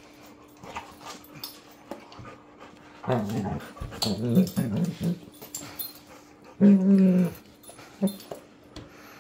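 Two young Labrador-type dogs play-fighting, growling at each other in bursts: a wavering run of growls about three seconds in, a louder, steadier one near seven seconds and a short one just after. Clicks and scuffles from their paws on the hard floor run between the growls.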